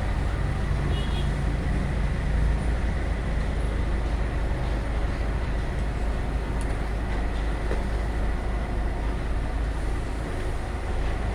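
Diesel engines of a concrete pump and a truck mixer running steadily during a concrete pour: a deep, unbroken rumble.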